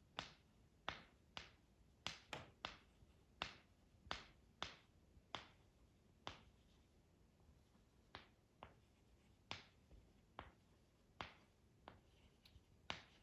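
Pen tip tapping dots onto paper to make small flowers: about twenty sharp, irregular taps, one or two a second.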